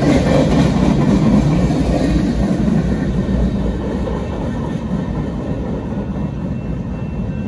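Canadian Pacific freight train's last cars rolling past on the rails, an even rumble that slowly fades as the end of the train, an empty centerbeam flatcar, moves off through the crossing.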